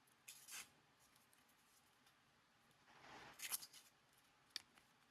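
Small credit-card-sized folding knife blade cutting: a faint, short scrape, then a longer rasping stroke about three seconds in, and a sharp click near the end. The blade is only moderately sharp: it cuts, but not smoothly.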